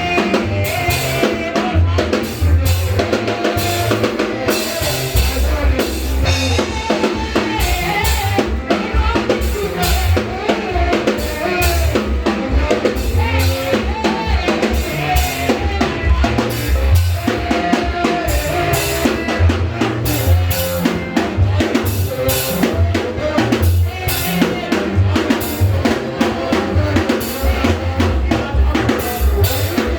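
Upbeat praise music with a drum kit keeping a steady beat, bass drum and snare clearly heard, under a wavering melody line.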